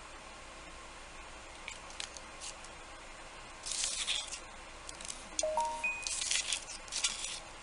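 Paintbrush dabbing and scratching over the piece: a few short scratchy rustles, with a couple of brief faint tones about halfway through.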